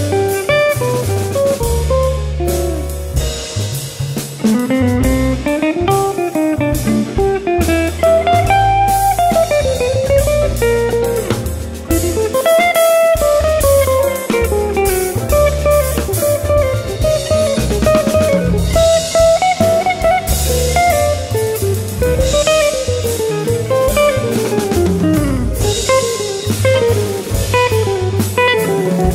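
Modern jazz band playing: a guitar runs melodic lines that climb and fall over double bass and drum kit.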